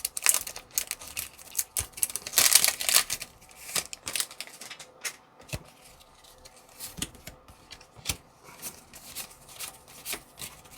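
A foil Pokémon card booster pack being torn open and the cards slid out and handled: crinkling and rustling, loudest in a tearing stretch about two seconds in, followed by softer flicks and clicks of the cards.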